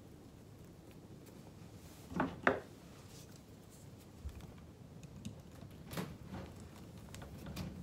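Bonsai tie-down wire being handled with wire cutters/pliers while securing a freshly repotted tree in its pot: two short, sharp metallic snips or scrapes about two seconds in, then a few light clicks.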